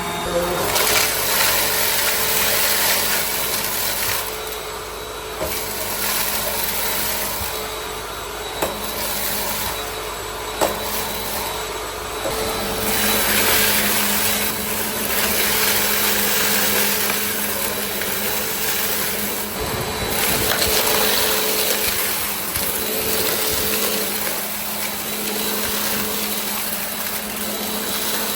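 Bissell CleanView Compact vacuum cleaner running, a steady motor hum under a rushing airflow that swells and eases in turn. Two short sharp clicks come near the middle.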